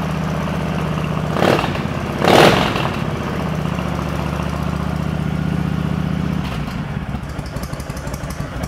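2007 Honda VTX1300C's V-twin engine idling on about half choke with a steady low beat. Two short noisy bursts come about a second and a half in and just after two seconds, the second louder. About six and a half seconds in, the idle turns lumpier and a little quieter.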